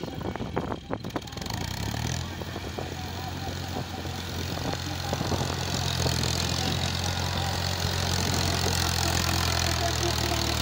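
Farm tractor's diesel engine running steadily under load, getting louder as the tractor drives closer while its blade pushes soil. A few sharp knocks come in the first second or so.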